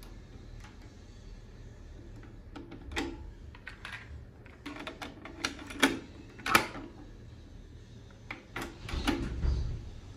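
Sony TC-RX300 cassette deck being loaded by hand: a run of plastic clicks and clacks from the cassette door and the tape going in, the loudest snap about six and a half seconds in. Near the end the auto-reverse transport engages with a low whirring clunk as play starts.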